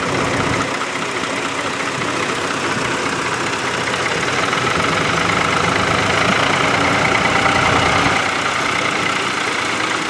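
Ford 4000 tractor engine running steadily under load while pulling a plough, a little louder past the middle as it passes close, then easing back.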